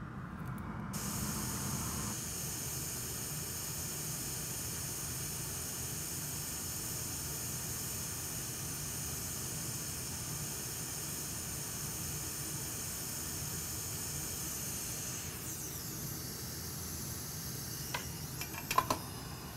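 Hot air rework station blowing a steady hiss onto a chip to melt its solder and desolder it. About fifteen seconds in the hiss drops in pitch and eases, and a few light clicks follow near the end.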